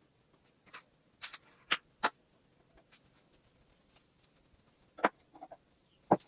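Small plastic toy pieces and their packaging tray being handled on a desk: scattered light clicks and taps, with a few sharper ones about two seconds in, about five seconds in and near the end.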